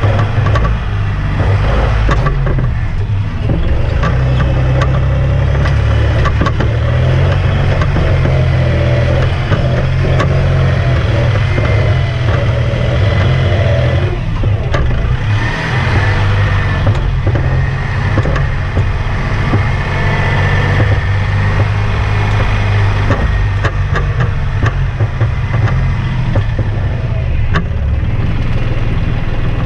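Kubota compact tractor's diesel engine running steadily while the tractor is driven, heard close from the operator's seat, with frequent short knocks and rattles throughout.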